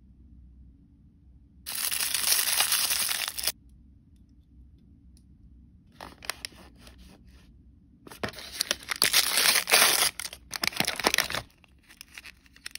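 Foil blind-bag packet being torn open and crinkled: a loud tearing rip about two seconds in that lasts a couple of seconds, scattered crinkles from about six seconds, then a longer stretch of loud tearing and crinkling. A few light plastic clicks near the end as the doll's clear plastic shell is handled.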